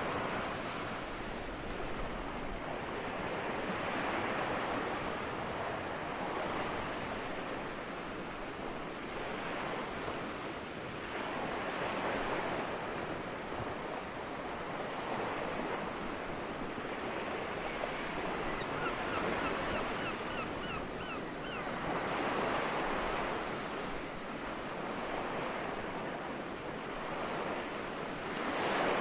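Gentle sea waves washing onto the shore, the surf swelling and fading every few seconds. Near the middle a gull gives a quick series of short, rising calls.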